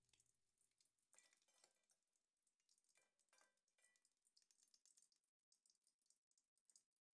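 Near silence: very faint sizzling of quail eggs frying in oil in a wok, with a few faint scrapes of a metal spatula and wire strainer against the wok.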